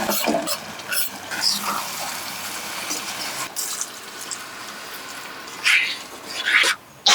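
Water running and splashing, with louder bursts of splashing near the end.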